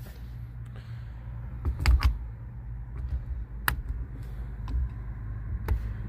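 Steering wheel being fitted onto its quick-release coupler: a few sharp metallic clicks, the loudest about two-thirds of the way through, over low dull knocks of the parts being handled.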